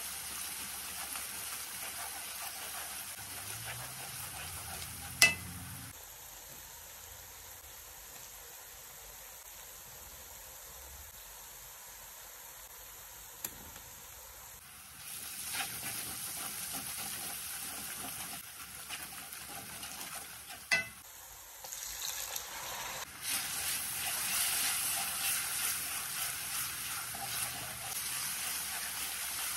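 Onion and tomato masala sizzling in hot oil in a metal wok while being stirred with a wooden spatula. The sizzle drops away for several seconds in the middle and comes back stronger near the end. Two sharp knocks, about five and about twenty-one seconds in, are the loudest sounds.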